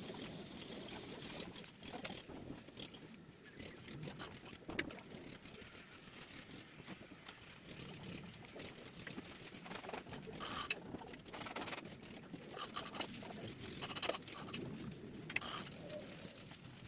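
Faint, irregular clicks and rustling of hands working cables and small tools at the wiring terminals of a fire alarm control panel.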